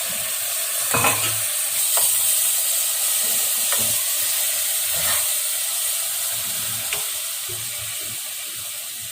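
A tomato and curd masala sizzling steadily in a frying pan while it is stirred, with the spoon knocking against the pan a handful of times.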